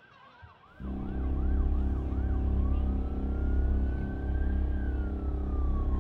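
Police siren yelping rapidly, then switching to a slow wail that rises and then falls. About a second in, a loud, steady low drone starts and stays under it as the loudest sound.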